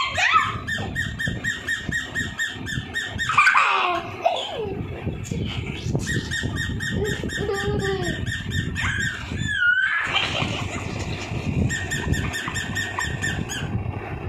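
Electronic plush toy dog giving out a rapid, evenly pulsed electronic chirping, in three runs of a few seconds each. Between the runs come a couple of high squealing glides.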